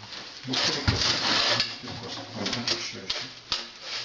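Scraping and clattering of stove parts being twisted and fitted together by hand, with a knock about a second in and sharp clicks near the end.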